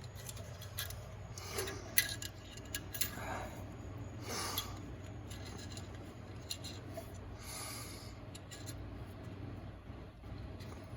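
Screwdrivers working a steel snap ring around the hub and into its groove over the low/reverse piston return spring in a 4L60E transmission case: scattered light metal clicks and short scrapes, over a steady low hum.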